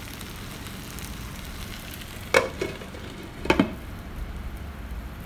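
Marinated chicken legs sizzling as they fry in a non-stick pan. About two and a half seconds in, and again a second later, the pan's glass lid clinks against it with a short ring as it is put on to cover the chicken.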